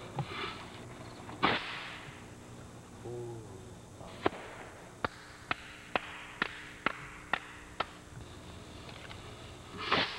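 Consumer fireworks going off at night: a loud bang about one and a half seconds in, then a run of eight sharp cracks about half a second apart, and a swelling, rushing burst near the end.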